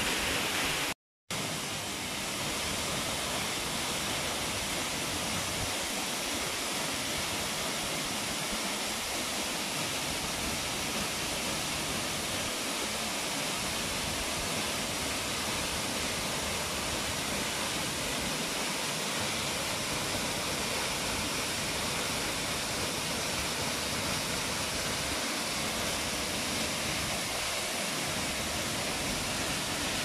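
Tall waterfall: a steady, even rush of falling water, broken by a short drop to silence about a second in.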